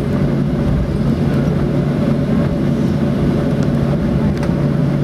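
Steady cabin noise of a Boeing 737-800 taxiing, its CFM56-7 engines running at low power, an even hum with a deep rumble, heard from inside the cabin.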